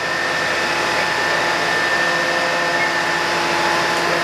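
Fire-truck turntable ladder's engine and hydraulic drive running steadily as the ladder and basket are moved: a loud mechanical whirr with a high, held whine.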